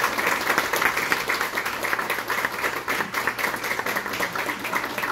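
Audience applauding steadily, a dense crowd of hand claps.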